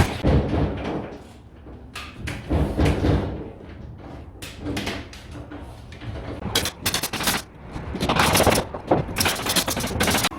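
Irregular clusters of sharp knocks and bangs, like tool strikes and work noise on a building site. The densest run comes near the end.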